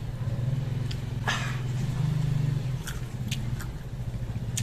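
Crunchy chewing of raw green mango: a crisp crunch about a second in, then a few smaller crunches. A steady low hum runs underneath.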